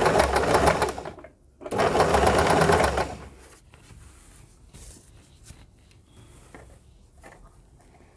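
Electric domestic sewing machine running in two quick bursts of stitching, each about a second and a half long with a short pause between, then stopping. After that only faint rustles and clicks of fabric being handled remain.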